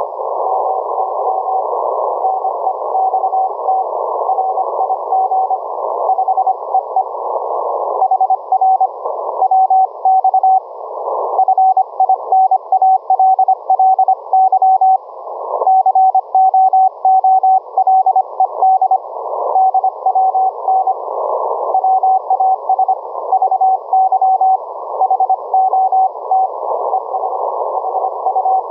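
Morse code (CW) on 40 metres from an Elecraft K3S transceiver's receive audio: one steady mid-pitched tone keyed on and off in dots and dashes over hiss of band noise, all held in the receiver's narrow audio passband.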